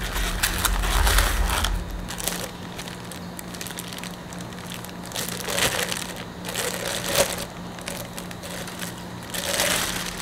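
Polystyrene foam packing rubbing and creaking as a ceramic teapot is worked out of its insert, then the crinkling of a clear plastic bag as it is pulled off the teapot, in uneven bursts.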